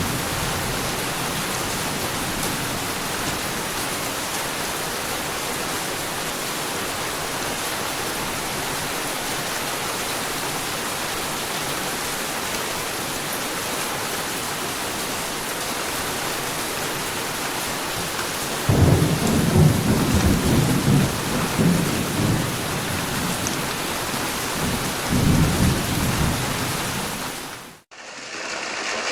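Steady rain falling in a thunderstorm, with rolling thunder rumbling about two-thirds of the way through and again shortly after. The rain fades out near the end and a different sound begins.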